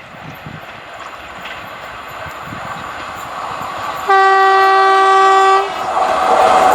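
WAP4 electric locomotive's horn sounding one steady blast of about a second and a half as the train approaches at speed. Before it, the train's rumble grows; after it, the rush and wheel clatter of the passing train come up loud.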